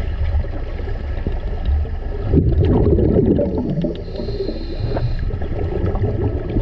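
Scuba diver breathing underwater through a Scubapro regulator. About two and a half seconds in, a burst of exhaled bubbles gurgles out of the exhaust. About four seconds in comes the steady hiss of air being drawn through the second stage on the inhale.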